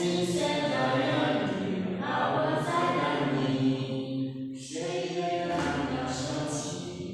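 Several voices singing a song together without accompaniment, in long held notes, with a short pause between phrases about two-thirds of the way through.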